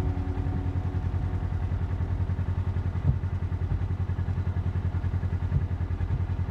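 Engine of a side-by-side utility vehicle running with a low, steady, pulsing drone, heard from inside its cab. A light knock comes about three seconds in.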